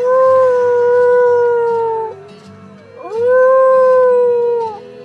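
Small terrier howling: two long howls of about two seconds each, each rising at the start, holding a steady pitch and dropping away at the end, sounding a little like a cow.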